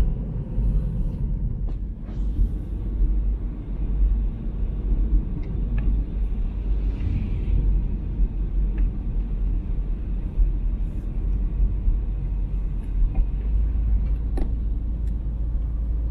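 Car driving along a road: a steady low rumble of the engine and tyres, with a few faint ticks.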